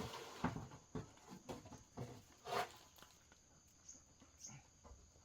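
Irregular knocks and clatter of timber and nails being handled during wooden house assembly, the loudest about two and a half seconds in. A steady high insect drone runs underneath.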